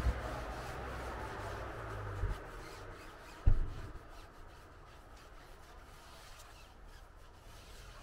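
A sponge applicator rubbing over a car's alloy wheel and tyre, soft scrubbing strokes that fade after the first few seconds into lighter wiping. Three dull low knocks come about two seconds in and three and a half seconds in, the last the loudest.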